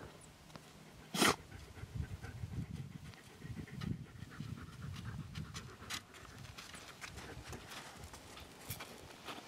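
An animal breathing heavily close by in quick, rhythmic breaths, with one loud sharp blow about a second in.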